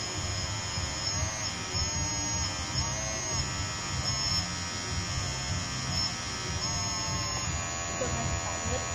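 Small electric motors of a radio-controlled toy CAT excavator whining as the boom and bucket dig. The pitch dips and rises several times as the arm moves.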